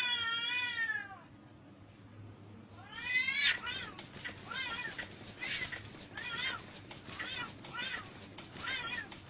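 Two cats fighting: a long, wavering yowl at the start, a rising yowl about three seconds in, then short yowling meows repeated roughly once a second.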